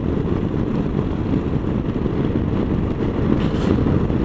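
Steady rush of wind and road noise on a motorcycle at riding speed, heard through the rider's microphone, with no clear engine note standing out.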